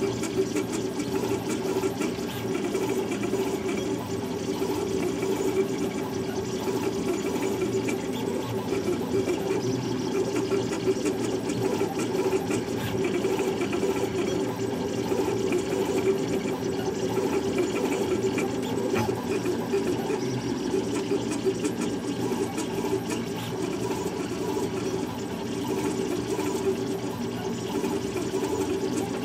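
Large-format 3D printer running a print: its stepper motors whir continuously as the gantry and print head move, a steady hum that wavers constantly with the head's changes of direction.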